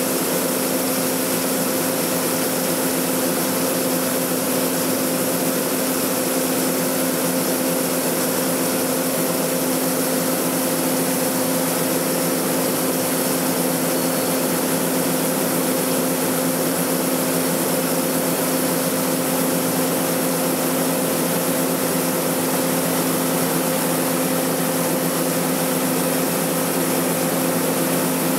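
Harvest machinery engine running steadily, a constant drone with a steady hum and no change in speed or load.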